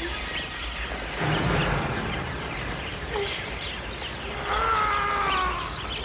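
A huge flock of sparrows swarming: a dense mass of chirping and fluttering wings that swells about a second in. A drawn-out wavering cry rises over it near the end.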